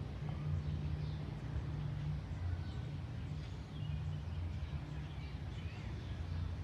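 Outdoor background: a steady low rumble with faint bird chirps scattered through it.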